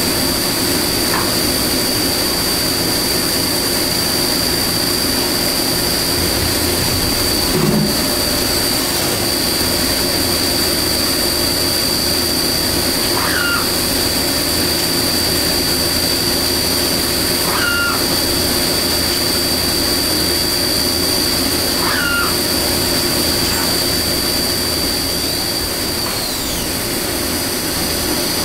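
Leadwell V-20iT CNC machining centre milling a brass part: a steady high spindle whine over a dense hiss of cutting. Short chirps recur about every four seconds in the second half, a single knock sounds about eight seconds in, and near the end the whine dips in pitch and comes back.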